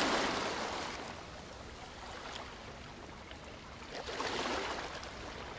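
Ocean surf: a steady rushing wash of waves that swells at the start and again about four seconds in.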